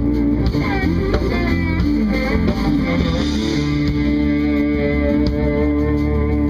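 Electric guitar playing a lead line with bent, wavering notes over a steady band backing with bass, in a jazz-fusion instrumental.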